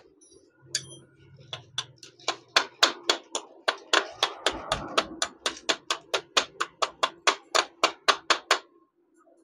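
Metal punch being struck with a steel rod in quick light taps, about three to four a second, driving a dowel pin into a 70cc motorcycle engine's crankcase. The tapping starts about a second and a half in and stops shortly before the end.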